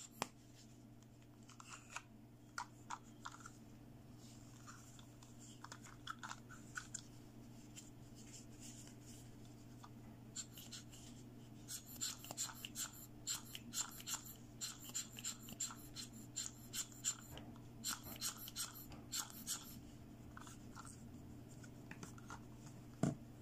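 Small plastic toy pieces being handled, tapped and clicked together. Scattered taps grow into a dense run of rapid clicks and rustles in the middle, and there is one sharper knock near the end, all over a low steady hum.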